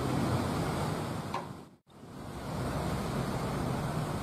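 Steady wind and sea surf on the shore, with wind on the microphone. The sound drops out for a moment about two seconds in.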